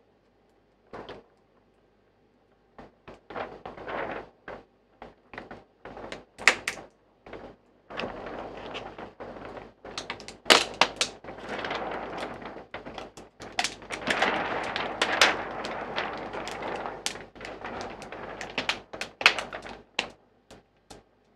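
Rigid protective strip being peeled off the edge of a TV panel's glass: adhesive tearing and plastic crackling in irregular snaps and clicks. It is sparse at first and turns into a dense, continuous crackle from about eight seconds in to near the end.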